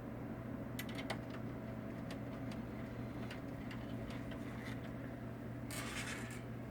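Scattered light clicks and ticks of a screwdriver and screws being worked into the rear of a laser printer, with a short scraping rasp near the end, over a steady low hum.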